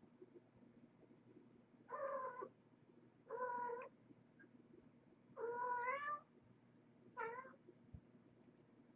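Kitten meowing four times, short calls a second or so apart, the third the longest and rising in pitch.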